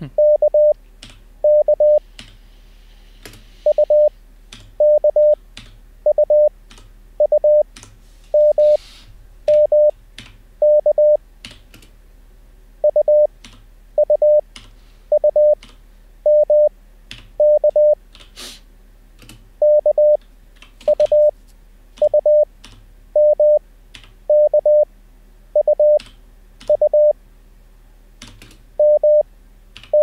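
Computer-generated Morse code practice: a 600 Hz tone sends single characters from the Koch method's first letters (K, M, U) at 20 wpm, spaced out to about one character a second with Farnsworth timing. Computer keyboard keystrokes click between the characters as the letters are typed in.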